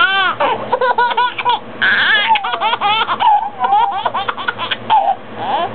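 Baby laughing hard and uncontrollably, in a rapid string of high-pitched belly laughs.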